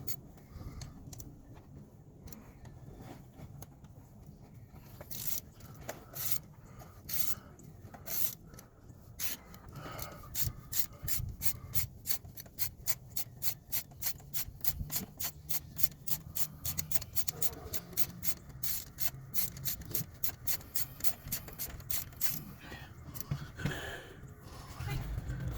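Ratchet wrench clicking: a few slow strokes, then a fast even run of about four clicks a second that stops near the end.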